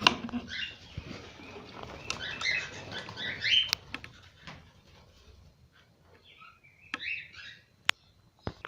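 Cockatiels chirping in short high calls through the first few seconds, then a lull, and more calls about seven seconds in. Two sharp clicks stand out, one near four seconds and one near eight.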